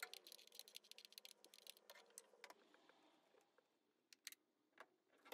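Faint rapid clicking of a socket wrench turning out a spark plug, thinning to a few isolated clicks in the second half.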